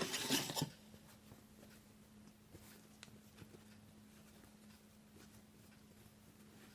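Ribbon being handled and shaped, with a short rustle right at the start and then only faint scattered rustles and ticks, over a steady low hum.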